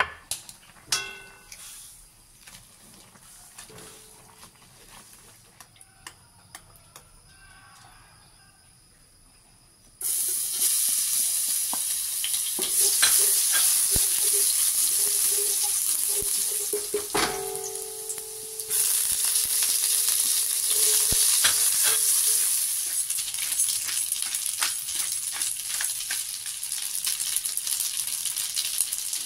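Food sizzling in hot oil in a stainless honeycomb wok as minced garlic is fried and stirred with a spatula. The frying starts suddenly about a third of the way in after a quiet stretch with a few knocks, and it grows louder again a little past halfway.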